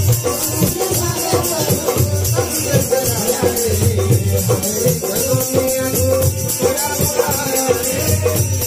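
Live folk song played loud through microphones and a loudspeaker system: a wavering melody over a steady, regular drum beat, with a shaker-like rattle.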